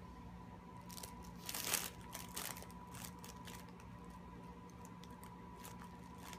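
Fabric cat play mat rustling as an American Shorthair cat pushes its head into it and rolls against it: a burst of rustling in the first half, loudest about a second and a half in, then a few faint ticks.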